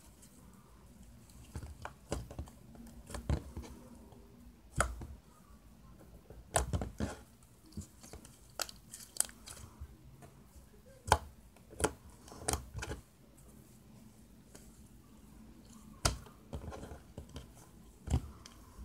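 Homemade slime being kneaded and squished by hand, giving irregular pops and clicks in short clusters with pauses between.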